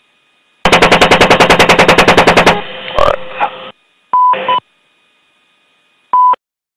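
Apache's M230 30mm chain gun firing one burst of about two seconds, at roughly ten rounds a second, followed by a single heavy thud. Later, radio hiss with short steady beeps: two together, then one more.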